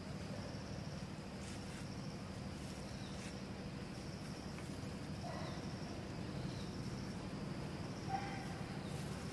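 Steady, high-pitched insect chorus over a low hum, with a few faint short calls, the clearest about eight seconds in.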